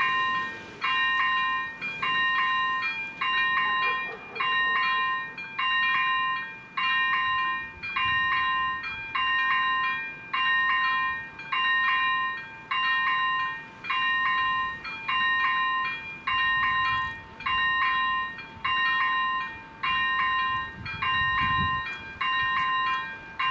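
AŽD 97 level crossing's electronic warning bells (ZV-01 and ZV-02) sounding a repeating multi-tone chime about once a second: the crossing is active, warning of an approaching train.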